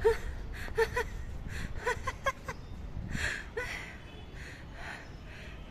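A person giggling: short, high squeaky notes in the first couple of seconds, then breathy puffs of laughter.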